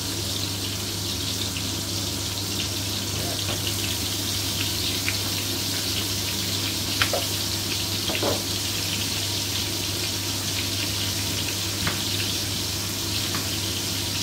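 Sliced onion rings sizzling in hot oil and melting butter in a frying pan: a steady frying hiss, with a few soft taps about seven and eight seconds in. A steady low hum runs underneath.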